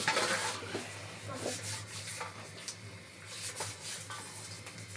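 Flour-covered hands rubbing and scraping in a metal bowl of flour, a dry rustling scrape that is loudest at the start.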